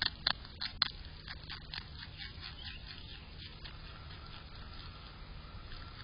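Groundhog chewing crisp leafy greens and a stalk close to the microphone: a few sharp crunching bites in the first second, then quicker, softer chewing that fades about halfway through.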